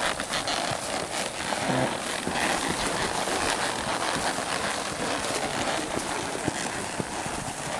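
A horse walking under a rider on a trail, with steady rustling noise throughout and a few faint hoof thuds.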